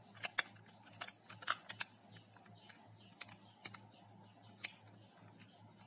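Sharp plastic clicks and taps of a phone's back housing being pressed and snapped into place, quick and irregular for the first two seconds, then sparser, with one louder click near the end.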